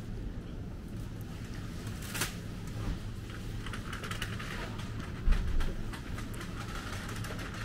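Grocery store ambience: a steady low hum under light clicking and rustling, with a sharp click about two seconds in and a low thump a little past five seconds.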